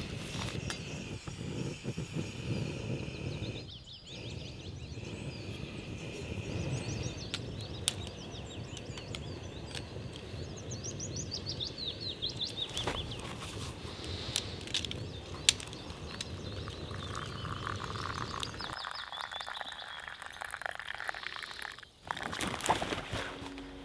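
Canister gas stove burner running with a steady low rush that stops about 19 seconds in. Water is then poured from the stove pot into a small plastic cup. Songbirds chirp over it, with a descending trill midway.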